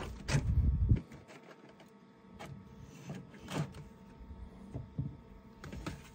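A knife cutting roasted vegetables makes a handful of light, irregular clicks and knocks, with a short low rumble about half a second in.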